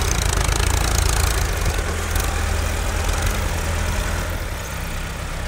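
Massey Ferguson diesel tractor engine running under heavy load as it hauls a fully loaded sand trolley through soft sand: a steady low rumble, strongest in the first couple of seconds and easing slightly toward the end.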